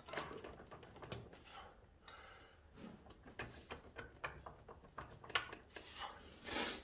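Scattered light metallic clicks and taps as a bare cylinder of a twin-cylinder two-stroke snowmobile engine is wiggled by hand to work it loose, with a brief rustle near the end.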